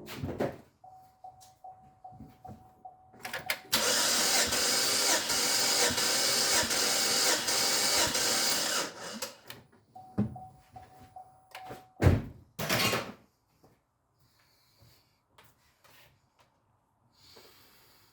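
Chevy Equinox six-cylinder engine cranked on the starter for about five seconds, with even pulses, for a compression test on a misfiring cylinder. A warning chime beeps before and after the cranking, and there is a single loud thump near the end.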